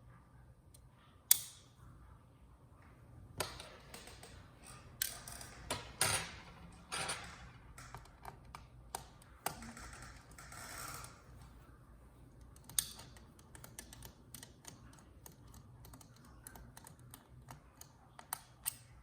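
Irregular small clicks, taps and scrapes of hands taking apart a laptop's underside, removing screws with a small magnetic screwdriver. One sharp click comes about a second in, with busier scraping and handling in the middle.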